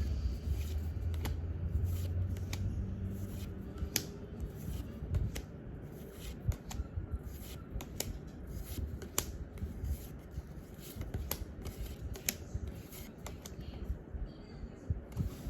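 Pokémon trading cards being handled and slid over one another, with irregular sharp flicks and clicks as each card is moved, over a low rumble.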